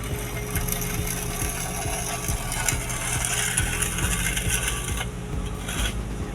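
Vehicle running with a steady low engine hum and frequent small clicks and rattles over a hiss.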